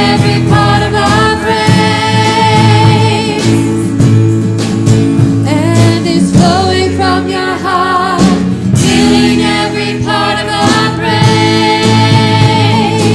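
A group of voices singing a worship song together in harmony, with sustained, wavering notes.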